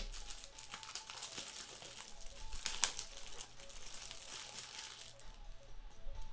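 Crinkling and rustling of trading-card pack wrappers being handled, with scattered crackles and the sharpest one about three seconds in.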